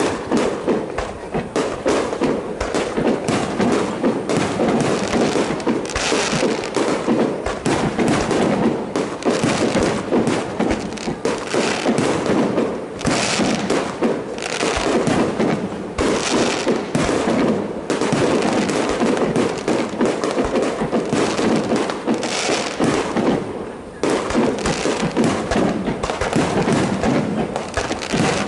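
Fireworks display: aerial shells bursting in a steady barrage of bangs, one after another with hardly a pause, easing briefly about three-quarters of the way through.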